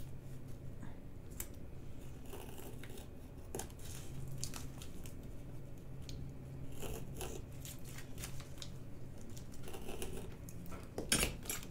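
Scissors snipping through small plastic bags of diamond-painting drills, with rustling of the plastic as they are handled, in irregular snips and crinkles with a busier cluster near the end.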